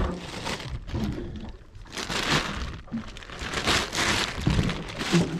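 Thin plastic shopping bags rustling and crinkling as they are handled, in several bursts, with a single sharp knock at the very start.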